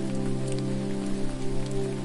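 Slow ambient music of held, low synth-like tones that change note now and then, over a steady hiss of falling water with scattered drip-like ticks.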